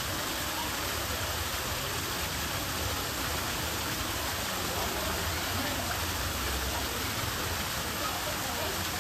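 Steady rush of water pouring from a hollow log into a small pool.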